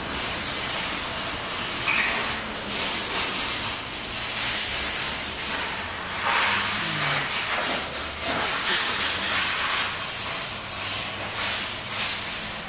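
Compressed air hissing from an air hose as the car's wheel area is sprayed clean of dust. It is a steady hiss with several stronger blasts of a second or so.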